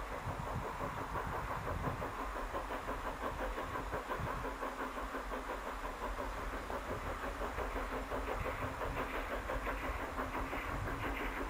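Small Henschel steam locomotive HC 5 working a train, its exhaust chuffing in a quick, steady rhythm under load.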